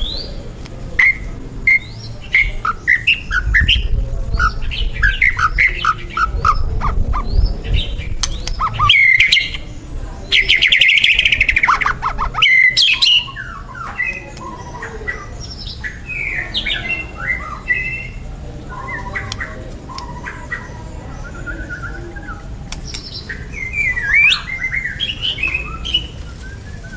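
White-rumped shama (murai batu) singing continuously in full voice: a varied run of whistled phrases, quick note series and rapid trills. A low rumble sits under the song in the first third.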